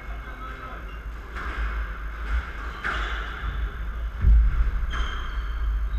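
Squash ball struck by a racket and knocking against the court walls, the loudest a heavy thud about four seconds in, with short squeaks of court shoes on the wooden floor.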